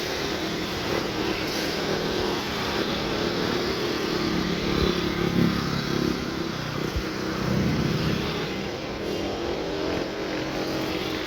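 General Electric diesel engine of a CC 206 (GE CM20EMP) locomotive running steadily, its low engine note wavering slightly in pitch.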